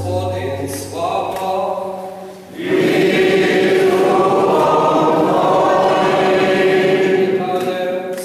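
Sung liturgical singing at Mass. A single man's voice sings for about the first two and a half seconds over a brief low hum. Then a choir and congregation come in loudly together and sing for about five seconds, before it thins out near the end.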